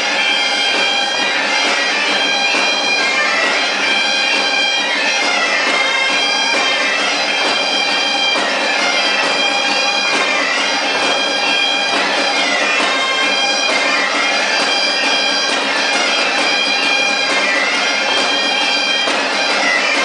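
Bagpipes playing a dance tune over a steady held drone.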